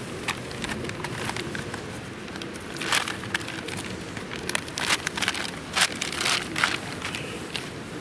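A crinkly green ration packet being handled, rustling and crackling in a run of sharp crinkles, thickest from about three seconds in until about seven seconds. A steady low rushing noise runs underneath.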